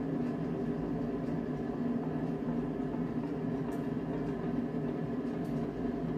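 Steady low hum in a small room, with a couple of faint light clicks.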